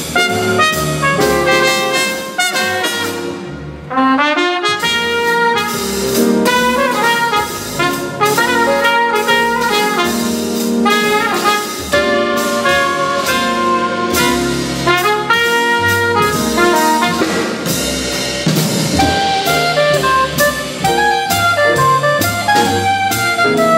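Small jazz group playing live: trumpet and soprano saxophone over piano, double bass and drum kit. The band thins out briefly about four seconds in, then comes back in full.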